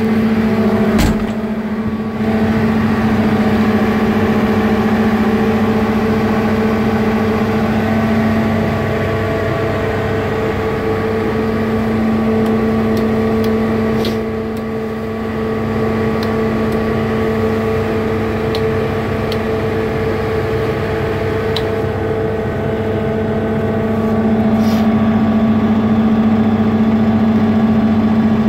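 Sherp N amphibious ATV's diesel engine idling steadily at about 1000 rpm under light load, with a single sharp knock about a second in.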